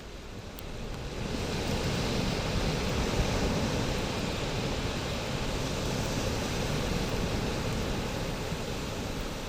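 Bonfire burning with a steady rushing roar of flames, growing louder about a second in.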